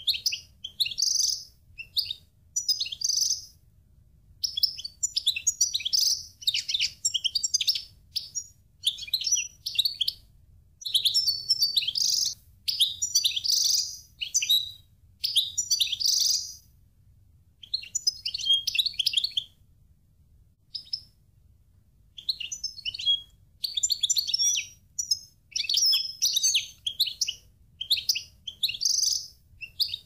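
Caged finch song: high-pitched twittering and warbling in phrases of one to three seconds, broken by short pauses, going on throughout.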